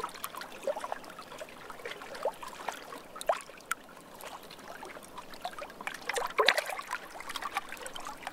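A small stream trickling and babbling in a steady run of little bubbling plops, with a louder cluster of them about six and a half seconds in.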